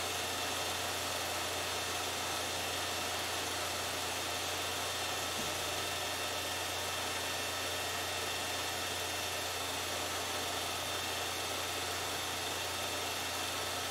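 Steady low hum under an even hiss, unchanging throughout: background noise of the recording with no other event.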